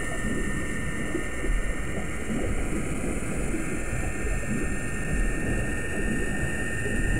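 Steady machinery noise: a continuous low rumble with a constant high whine over it.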